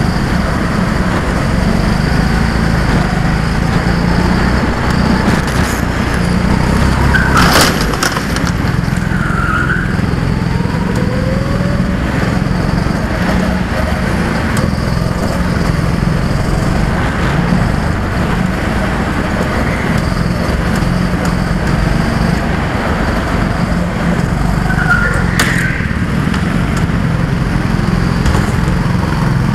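Go-kart's small engine running continuously at racing speed, heard close up from on board the kart. Two brief sharp knocks, about seven seconds in and again near the end.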